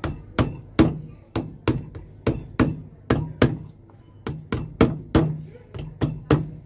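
Hand hammer striking the heel seat of a leather shoe in a quick run of about eighteen blows, roughly three a second, with a short pause past the middle. The old heel nails are being driven through so they can be pulled out during a resole.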